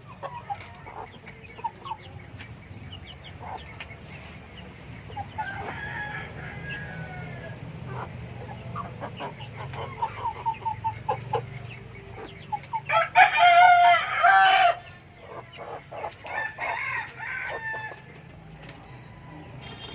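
Rhode Island Red chickens clucking on and off, with a rooster crowing once for about a second and a half, loudest about two-thirds of the way through.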